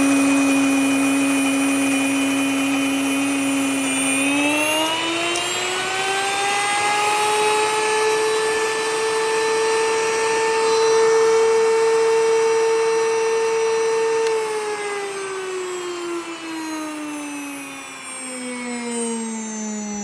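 Electric grain mill grinding flour with a loud motor whine. The whine rises in pitch about four seconds in and holds, then after about fourteen seconds falls slowly and steadily as the motor winds down.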